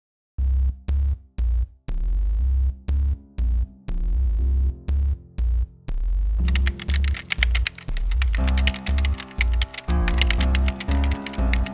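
Music with deep bass notes in a stop-start pattern starts about half a second in. From about six and a half seconds, rapid typing clicks run over it, a typing sound effect as text types onto the screen.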